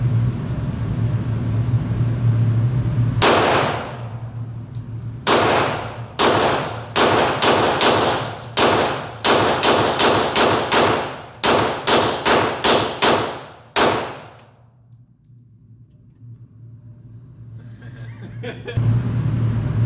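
AR-15 rifle fired in about twenty shots, one shot first, then quick runs of several shots each a fraction of a second apart, each shot echoing briefly. A steady low hum plays under the start and comes back near the end.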